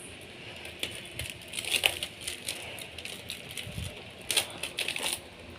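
A parcel's packaging being handled, with irregular crinkling and crackling.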